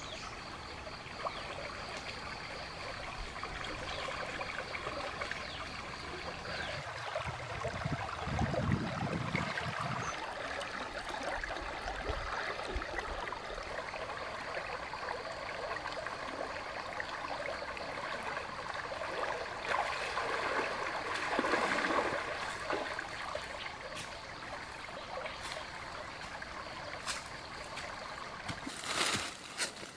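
Shallow stream running over rocks in a steady rush, with a louder low surge for a couple of seconds about a third of the way in and a few sharp knocks near the end.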